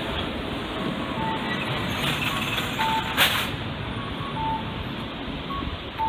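Steady jet roar of a Skymark Airlines Boeing 737-800's twin CFM56 turbofans passing overhead. Faint short beeps recur about every one and a half seconds, and a sharp knock sounds about three seconds in.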